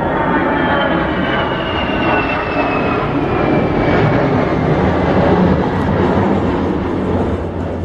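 Jet airliner flying past: loud engine noise with a turbine whine that falls steadily in pitch as it goes by, easing off near the end.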